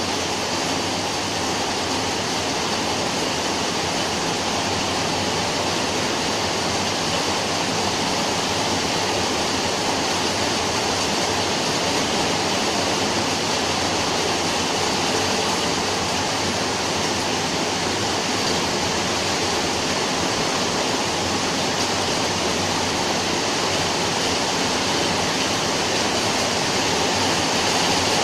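Steady rain falling: an even, continuous hiss without breaks or distinct drops.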